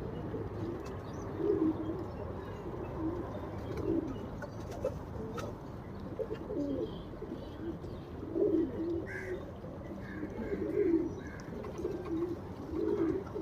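Homing pigeons cooing, low rounded coos repeating every second or two.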